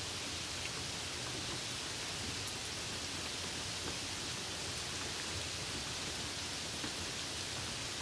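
Water splashing steadily from the small central jet of a stainless-steel drinking-fountain bowl, an even, unbroken rush of water noise.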